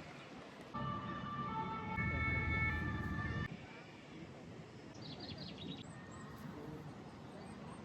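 A vehicle's multi-note horn or siren sounds for nearly three seconds, starting suddenly, stepping between chords of steady tones, then cutting off. Faint bird chirps follow.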